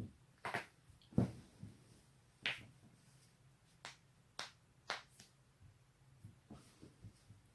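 Joints cracking: a dozen or so sharp pops at uneven intervals, the loudest about a second in, with fainter ones near the end.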